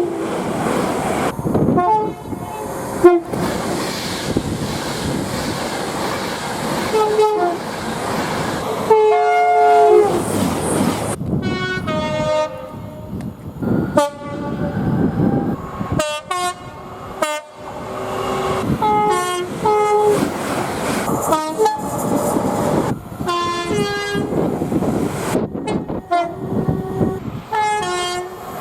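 Train horns sounding in a string of short blasts, often two notes at once, some sliding down in pitch as the train passes, over the noise of moving trains. Clips are joined by abrupt cuts.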